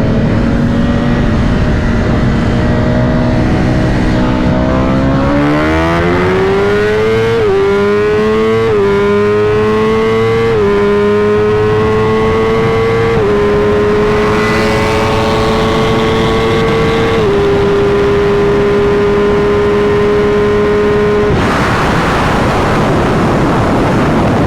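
Sport bike engine running steadily, then pulling hard under full throttle, its pitch climbing, with a string of quick upshifts, each a short drop in pitch. Near the end the engine note falls away into a loud steady rush of noise.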